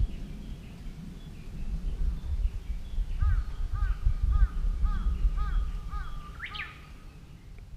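A bird calling in the distance: a run of about eight short, arched notes, roughly two a second, ending in a quick rising note, over wind buffeting the microphone.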